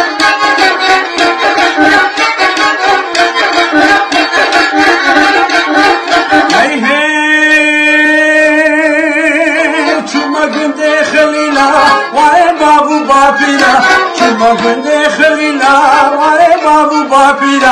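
Kamancheh (bowed spike fiddle) playing a fast run of notes, then a long wavering held note about seven seconds in. After that a man sings over it through the second half.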